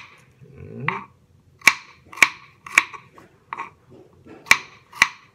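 Kitchen knife chopping shallots on a wooden cutting board: a series of sharp knocks, about seven, spaced half a second to a second apart.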